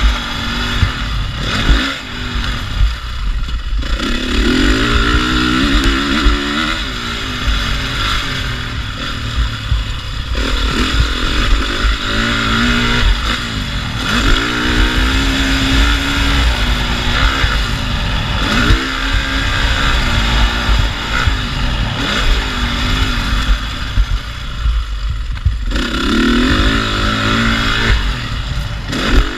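Dirt bike engine being ridden around a motocross track, revving up and down again and again as the rider works the throttle and gears, heard from a camera on the bike.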